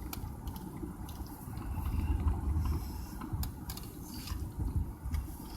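Road and engine noise of a moving car heard from inside the cabin: a steady low rumble that swells briefly about two seconds in, with a few faint clicks.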